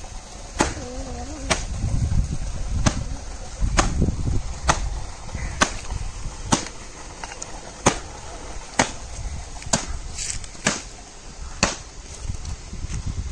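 Footsteps in flip-flop sandals on a dirt path, a sharp slap with each step at about one a second.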